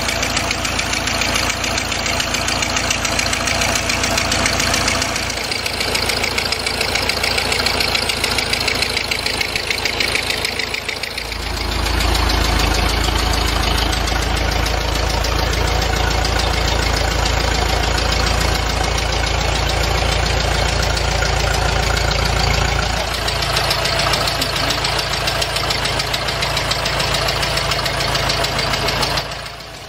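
Ford Model T's four-cylinder side-valve engine running steadily, its firing making a fast, even patter. A deeper rumble comes in about eleven seconds in and eases a little past twenty seconds, and the sound dips briefly just before the end.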